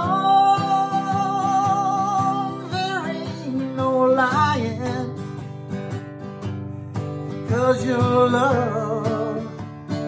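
A man singing a slow ballad to his own strummed acoustic guitar, holding one long note at the start before moving into shorter sung phrases.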